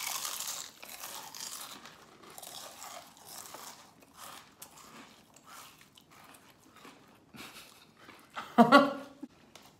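Honey butter potato chips crunched and chewed by two people with mouths stuffed full, loudest at the first bite and going on as a run of smaller crunches. About eight and a half seconds in, a short burst of voice is the loudest sound.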